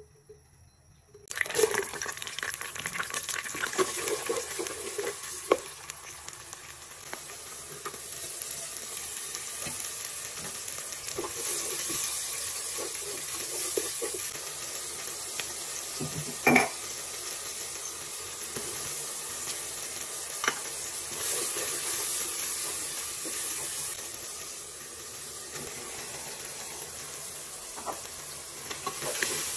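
Chopped ingredients frying in hot palm oil in a nonstick pot, sizzling steadily while being stirred with a wooden spatula. The sizzle starts suddenly about a second in, and the spatula knocks against the pot a few times, loudest about halfway through.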